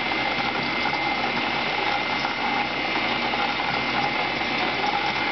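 Homemade CNC coil winder running steadily as it winds 24-gauge Litz wire onto a coil form. The sound is a constant mechanical whir with a steady high-pitched whine from the drive.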